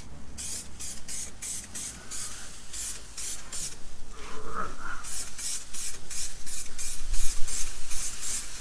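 Aerosol can of clear lacquer spraying in short repeated passes, about two to three hisses a second, with a pause near the middle. Wind buffets the microphone with a low rumble near the end.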